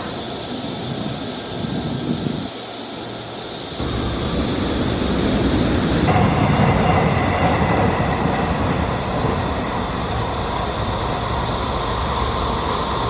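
Steady rumbling hiss of a moving vehicle heard from inside, changing abruptly about 4 seconds and again about 6 seconds in.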